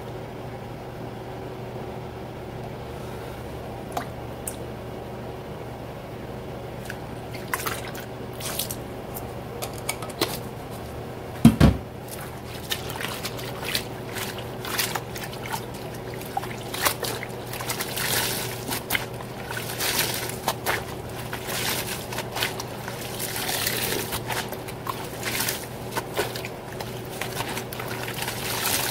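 Gloved hands pressing, swishing and squeezing wet cotton kitchen towels in soapy water in a stainless steel sink: splashing and squelching that begin after a quiet start and grow busier toward the end. One loud knock comes about a third of the way through.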